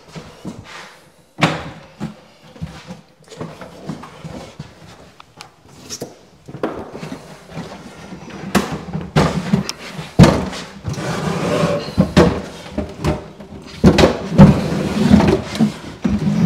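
Wooden kitchen base cabinet knocking and thudding as it is carried, tipped and set into place, with irregular bumps that get louder and more frequent from about halfway through.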